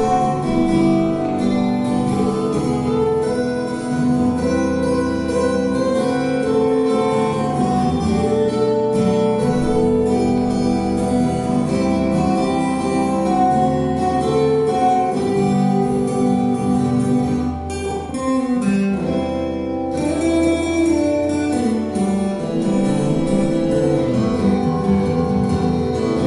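Two acoustic guitars playing an instrumental duet live, a busy run of plucked notes and chords, thinning out briefly about two-thirds of the way through.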